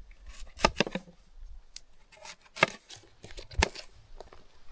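A knife chopping an apple and a pear on a barrel lid used as a chopping board. It makes a few irregular sharp knocks, the loudest about three and a half seconds in.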